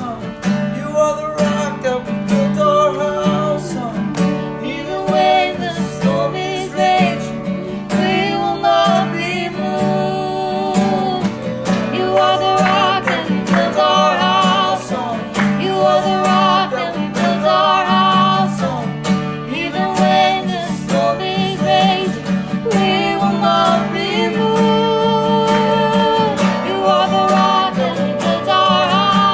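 Live worship music: strummed acoustic guitar under a wavering sung melody, playing continuously.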